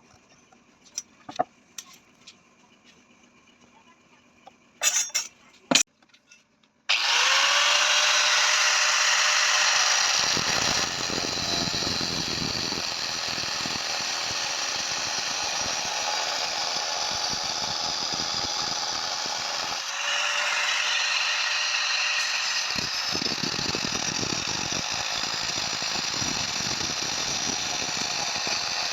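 A few light clicks and knocks, then about seven seconds in a power tool starts with a brief rising whine and runs steadily, its noise growing heavier at times.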